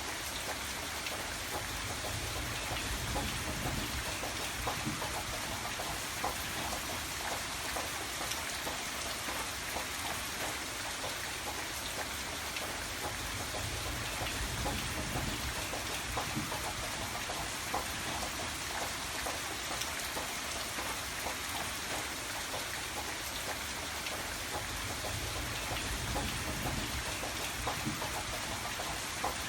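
Steady rain falling, with many separate drops pattering on a hard surface and a low rumble that swells and fades every several seconds.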